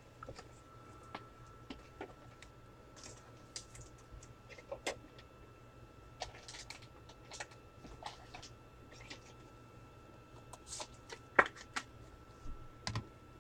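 Trading cards being handled and sorted on a table: scattered light clicks and taps, irregularly spaced, with a sharper tap about eleven seconds in. A faint steady hum sits underneath.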